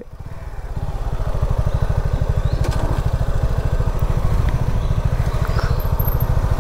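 Suzuki V-Strom SX 250's single-cylinder engine running at low riding speed, its firing beat even and steady after building up over the first second.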